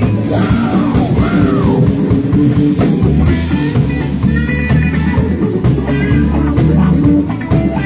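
Live rock band playing, with electric guitar lead lines bending in pitch over bass and drums.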